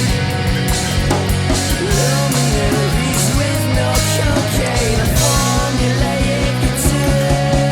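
Rock music with a steady drum beat under a sustained bass and a wavering melodic line.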